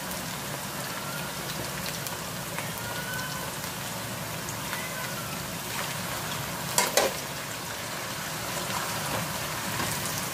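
Potato strips frying in hot oil in a wok: a steady sizzle with fine crackling, as a slotted metal spatula stirs them. A single sharp knock about seven seconds in.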